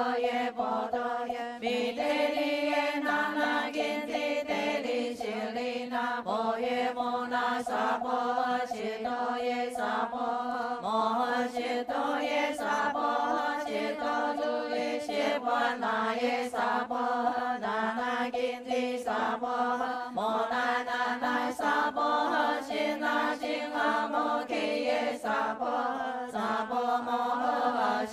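A group of voices chanting a Buddhist sutra in unison, a steady sung recitation held on a few sustained pitches.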